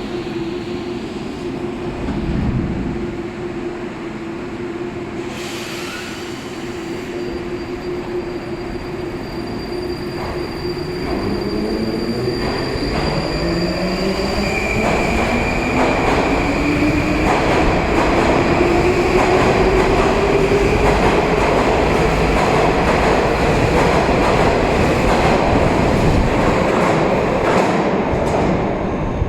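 81-725 metro train's electric traction drive whining as the train gets under way: a steady hum at first, then from about ten seconds in several tones rising in pitch together as it gathers speed, with wheel and rail clatter growing louder.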